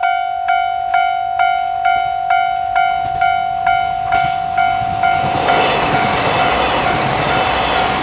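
Japanese level-crossing alarm ringing a steady electronic ding, about two strikes a second. About five and a half seconds in, a KiHa 261 series diesel limited express train passes close by, and its engine and wheel noise swells over the bell, which keeps sounding beneath it.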